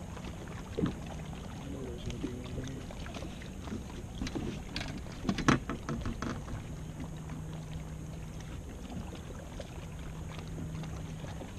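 Sounds aboard a bass boat: a steady low hum, stronger in the second half, under a few knocks and clunks on the boat, the sharpest about five and a half seconds in.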